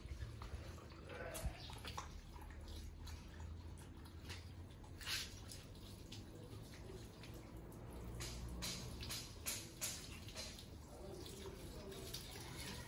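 Water running from a garden hose, with a dog lapping from the stream and irregular small splashes.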